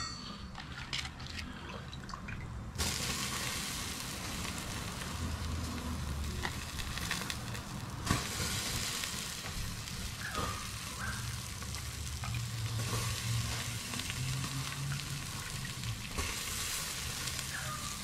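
Brine basted over goat meat on a hot charcoal grill, sizzling: a clink right at the start, then a steady loud sizzle that starts about three seconds in and swells and eases as more liquid goes on.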